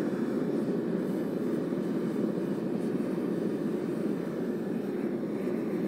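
Two-burner gas forge running, a steady, even rushing noise that does not change, while it heats a steel blade toward critical temperature for hardening.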